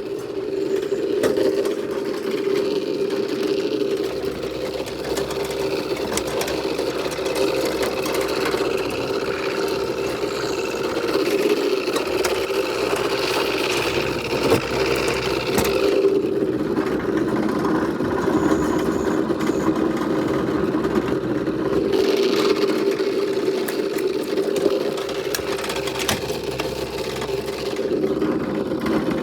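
John Deere riding lawnmower's engine running steadily with the mower blades engaged, cutting grass.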